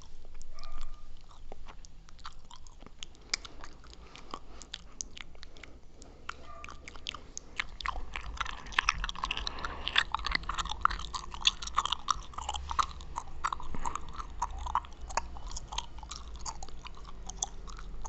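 Chewing gum chewed close to the microphone, with wet mouth clicks and smacks; the chewing gets busier and louder about halfway through.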